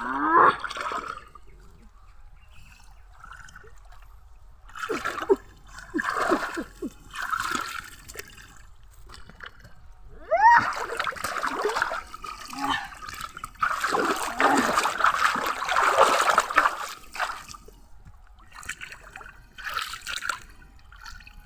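Water splashing and sloshing in irregular bursts, the longest and loudest about two thirds of the way through.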